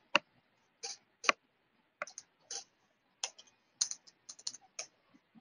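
Computer keyboard keystrokes and mouse clicks: a string of short, separate taps at an uneven pace as an answer is clicked and typed in.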